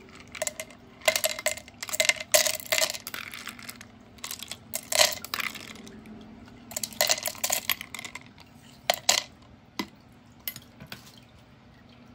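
Ice cubes clinking and rattling against a spoon and plastic cups as they are spooned from one cup into another, in several bursts of clinks with short pauses between, fading to a few light ticks near the end.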